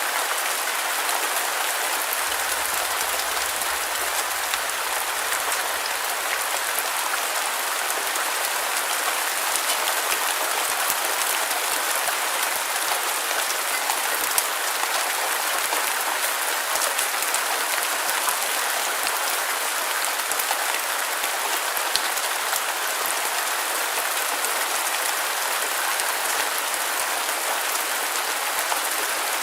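Steady rain: an even hiss with a dense patter of fine drop ticks.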